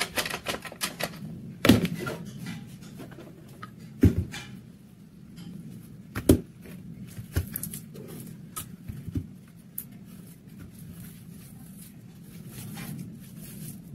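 Screwdriver clicking and scraping against the butt end of an old wooden rifle stock, then three sharp knocks about two seconds apart as the stock and screwdriver are handled and put down on the work surface, with lighter tapping and handling after.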